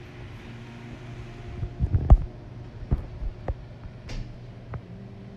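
A steady low hum with several dull thumps and knocks on top of it, the loudest about two seconds in.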